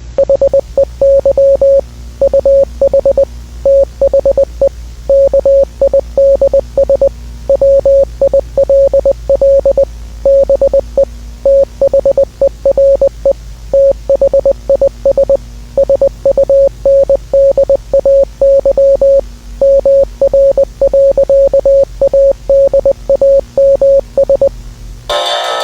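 A single beeping tone keyed on and off in short and long pulses, in the rhythm of Morse code, over a steady low hum. Music comes back right at the end.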